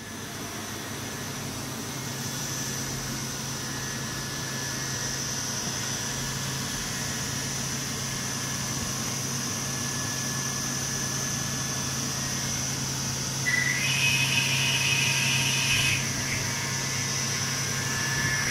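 Hurco VMX42T vertical machining center running: a steady hum under a high, constant whine. About three quarters of the way through, a higher-pitched whine joins for about two seconds, then stops.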